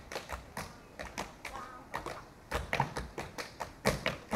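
A run of quick, irregular sharp taps and knocks, about four a second, with a couple of louder hits near the middle and near the end.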